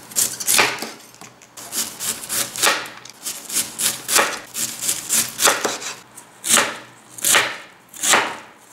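Chef's knife shredding a head of white cabbage on a cutting board, in a steady series of chopping strokes about two a second.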